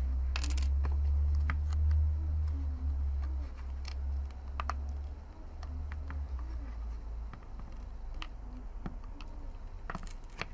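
Small plastic clicks and taps of a portable hard-drive enclosure being pried apart and handled, with a sharp snap about half a second in. A low rumble runs under it and fades out about seven seconds in.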